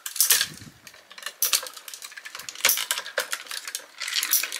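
Irregular clicks and clacks of a die-cast metal and plastic Soul of Chogokin Titanus collectible figure being handled, its parts knocking and snapping into place, with several sharper knocks spread through.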